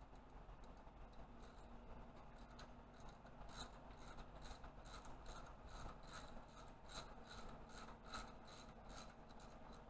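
Faint, rhythmic clicking of a hand ratchet, about two to three clicks a second beginning a few seconds in, as camshaft bearing cap bolts are worked loose.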